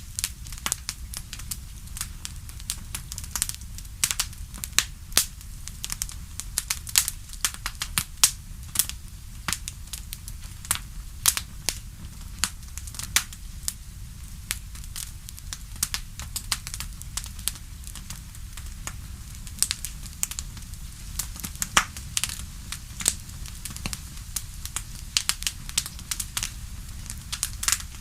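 Wood fire crackling in a fireplace: irregular sharp pops and snaps, many a second, over a steady low rumble.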